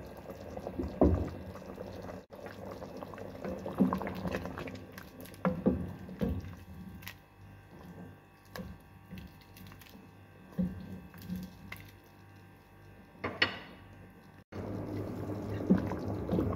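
Soup being stirred with a wooden spoon in a pot: liquid sloshing, with several sharp knocks of the spoon against the pot.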